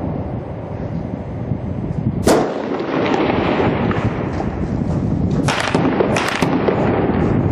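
Gunfire in urban combat over a continuous rumble. One sharp crack comes about two seconds in, and two more close together near the end, each echoing briefly.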